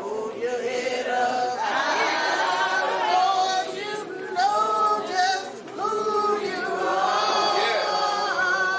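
A group of voices singing together without instruments, with long held notes that shift pitch.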